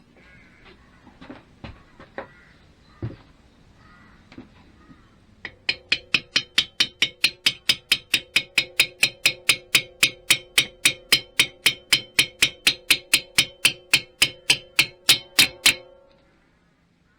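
A few scattered knocks, then rapid, even tapping on metal engine parts, about four strikes a second with a ringing note, that stops abruptly near the end.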